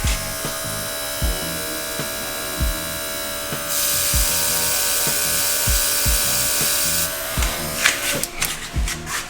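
Cordless mini air compressor running with a steady motor buzz. About three and a half seconds in, an airbrush spray gun lets out a strong hiss of air and colour for about three seconds. Background music with a steady beat plays underneath.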